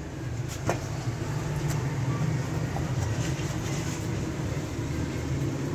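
A steady low mechanical rumble, like a machine running, with a few faint sharp clicks over it, the clearest one a little under a second in.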